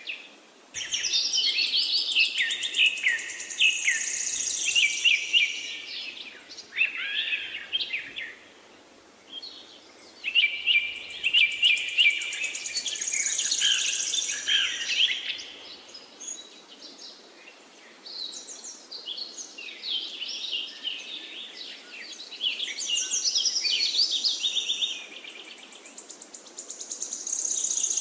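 Birds singing: rapid chirps and trills in long phrases, with short pauses between them.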